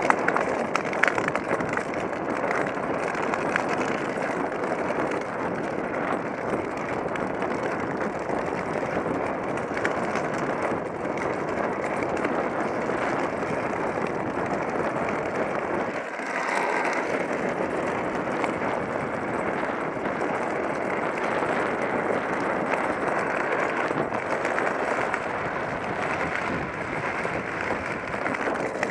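Steady rushing noise of a tricycle's wheels rolling fast on asphalt, mixed with wind, heard through a helmet-mounted action camera's microphone. The noise changes briefly about halfway through.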